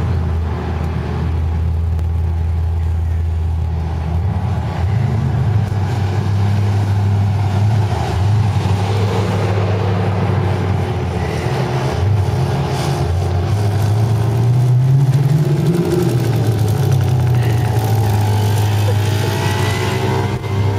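Steady low engine drone close by. About three-quarters through, an engine revs up and drops back. Near the end a higher engine note rises as a small moped rides past.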